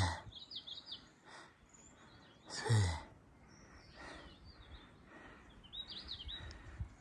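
A hiker breathing hard from the exertion of the climb, with two heavy voiced sighs, each falling in pitch: one at the start and one nearly three seconds in. Between them a small bird sings short runs of high chirps, twice.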